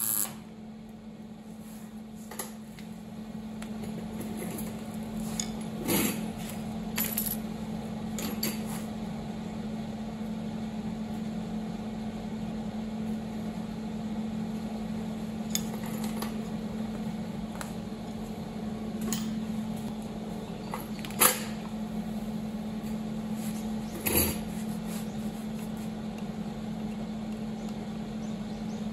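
Scattered metallic clinks and knocks from tools and sheet-metal parts being handled, about a dozen spread unevenly, the loudest about three quarters of the way in, over a steady low hum.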